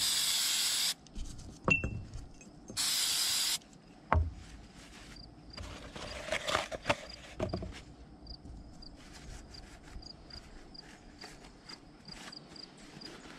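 Aerosol carburetor cleaner sprayed in two short hissing bursts into the carburetor of a Honda generator engine, followed by a few sharp knocks of the small parts and the can being handled and set down, then faint rustling of a paper towel wiping the parts.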